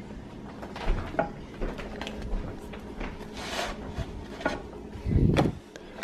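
Kitchen handling noises: scattered light knocks and clicks, likely from plates and a baking tray on a countertop as sandwiches are moved onto a plate, with a heavier low thump about five seconds in.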